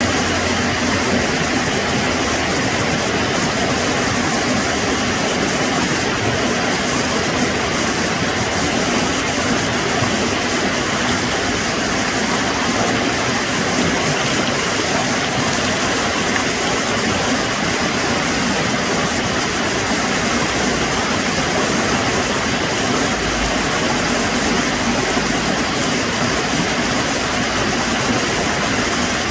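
Water pouring down a dam spillway over rocks into the pool below, a steady rushing sound.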